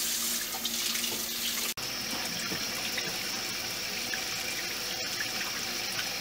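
Kitchen faucet running in a steady stream into the sink while hands are washed under it, with a brief break about two seconds in.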